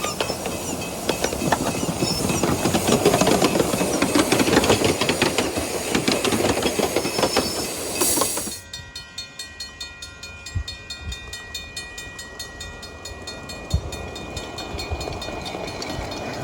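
A 7¼-inch gauge live steam miniature train running, with rapid clicking of wheels over the track and steam hiss. About two-thirds of the way through it cuts off suddenly to a quieter scene with several faint steady high tones and a few soft knocks.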